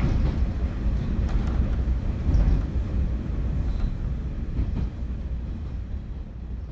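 Running noise heard inside a KiHa 47 diesel railcar: a steady low rumble of the train, with a few faint clicks from the rails. It gets gradually quieter in the second half.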